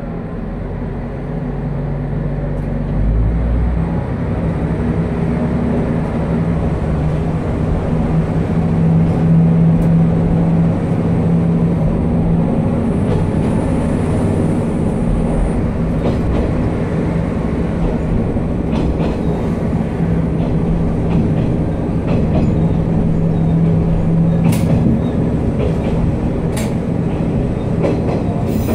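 Noto Railway NT200 diesel railcar moving off from a station: its diesel engine drones steadily under power, with rail noise underneath. Near the end the wheels give a few sharp clacks over rail joints and points.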